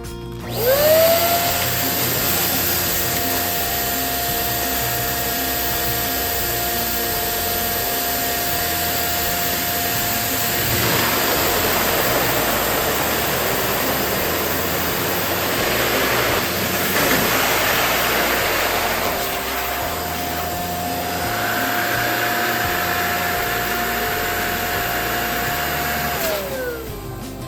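Electric balloon inflator running, a steady motor whine over a rush of air, spinning up about half a second in and winding down near the end as a balloon is filled.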